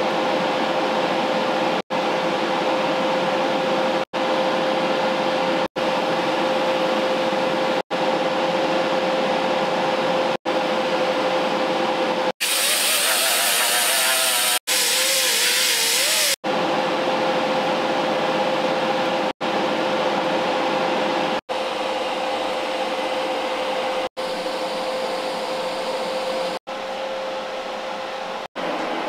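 TIG welding: a steady hiss with a constant hum under it, broken by abrupt silent gaps about every two seconds. For a few seconds in the middle the hiss turns brighter and harsher.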